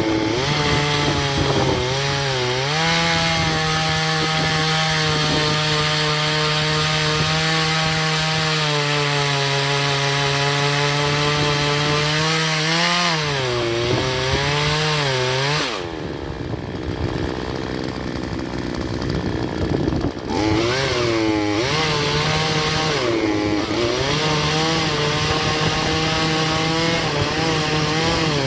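Troy-Bilt TB4218 42cc two-stroke chainsaw cutting into an oak stump at high revs, its engine note dipping and recovering again and again as the chain bogs under load. About halfway through, the high engine note drops away for about four seconds, then the saw revs up and cuts again.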